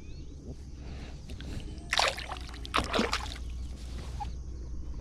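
Water splashing twice, the splashes close together about two and three seconds in, over a steady low rumble.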